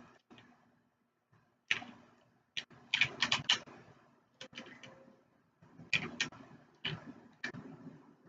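Plastic speed cubes being handled and turned: irregular bursts of quick, light clicks and clacks with short gaps between them.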